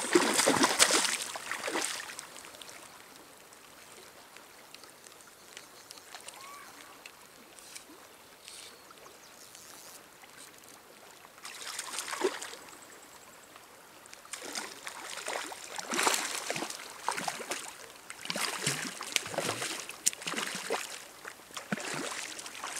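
Hooked lake trout thrashing at the surface, splashing in bursts: in the first two seconds, again about twelve seconds in, and repeatedly over the last eight seconds, with a quieter stretch of faint flowing water between.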